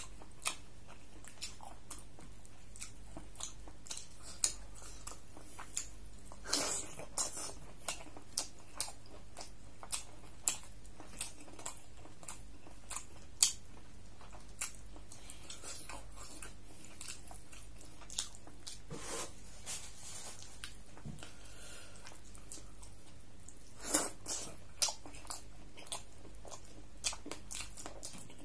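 Close-miked eating of beef curry and paratha by hand: chewing, wet lip smacks, and fingers squishing through the curry, heard as scattered sharp clicks and smacks with a few small clusters.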